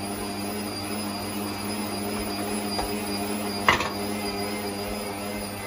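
Electric stand mixer's meat-grinder attachment running steadily, a constant motor hum, while walnuts are ground through it. A single sharp knock comes a little past halfway.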